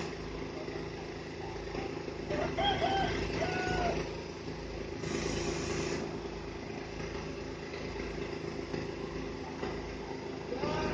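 Truck crane's diesel engine running steadily, with a few short pitched calls about two to four seconds in.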